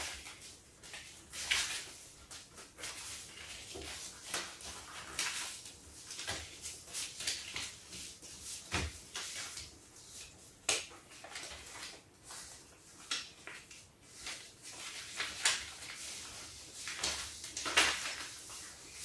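Yellow craft paper being folded and creased by hand: soft, irregular rustling and crackling, with several sharper crinkles scattered through.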